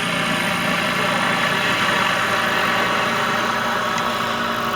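Light aircraft piston engine running steadily at low power, as when idling or taxiing, with a broad rushing noise around it.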